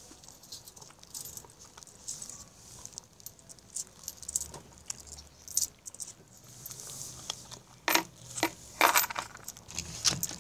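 Scattered light clicks and rustles of handling, with a few sharper knocks about eight and nine seconds in and again just before the end.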